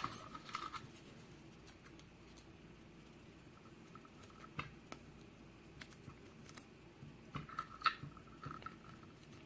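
Scattered small metallic clicks and scrapes of hand tools working on a lock cylinder while trying to shim it apart, with a sharper click at the start and a short run of scraping clicks near the end.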